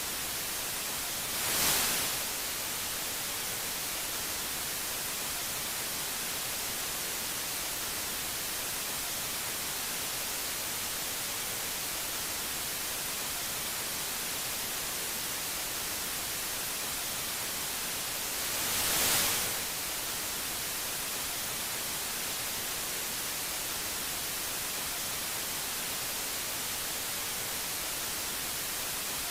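Steady, even static hiss, getting louder for about a second twice: once about two seconds in and again near the middle.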